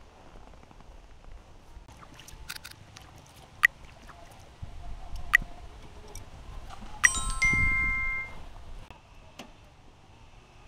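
Metal tent pegs clinking: a few sharp separate clicks, then one clear ringing clink about seven seconds in that dies away over a second or so.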